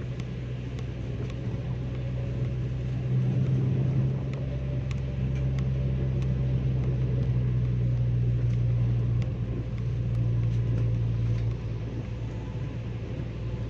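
Car cabin noise while driving on a highway in heavy rain: a steady low drone from the engine and tyres, with scattered light taps of raindrops on the car, growing louder for a few seconds around three seconds in and again later.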